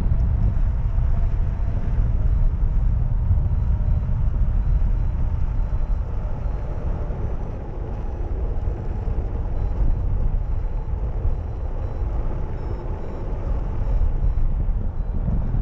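Wind rushing over the microphone of a camera on a hang glider in flight: a steady, low buffeting that rises and falls a little in strength.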